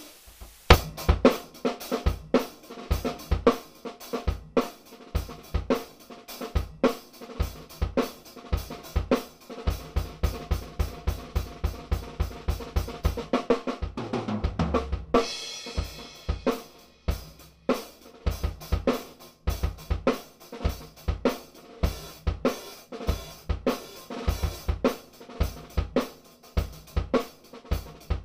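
Acoustic drum kit played solo: fast snare and tom fills over steady bass-drum strokes, with hi-hat and cymbal hits, and a cymbal crash ringing out about halfway through.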